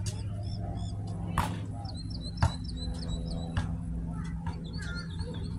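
A basketball bouncing on an outdoor court, three sharp knocks about a second apart. Small birds chirp in quick repeated runs over a steady low hum.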